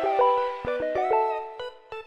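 Background music: a soft plucked-string melody of short stepped notes, after a heavier beat drops out just before.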